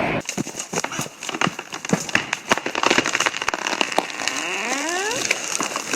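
Wood cracking and popping as a felled tree gives way, with a rising creak about four seconds in.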